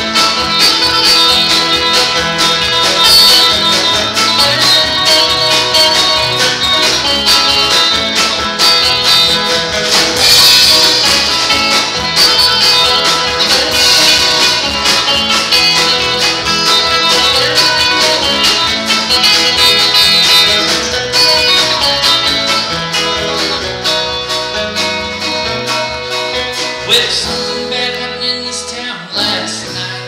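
Live band playing an instrumental break with electric guitar, electric bass, banjo and drums in a country-bluegrass groove. The playing thins out and gets quieter over the last few seconds.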